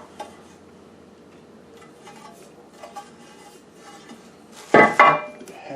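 Metal meat-grinder plates and parts being handled, with faint clinks and then a loud metallic clatter that rings near the end.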